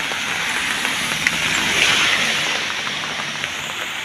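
Steady rushing hiss of heavy rain and flowing floodwater, swelling slightly about two seconds in.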